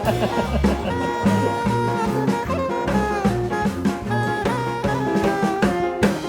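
Upbeat jazz-swing background music with brass, a walking bass and a drum kit keeping a steady beat.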